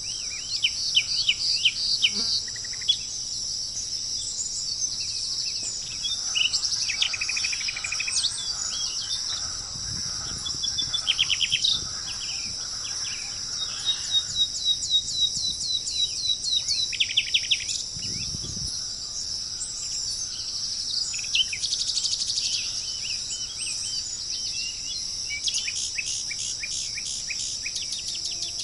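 Steady high-pitched insect chorus with birds calling over it, several times, in runs of quick downward-slurred notes.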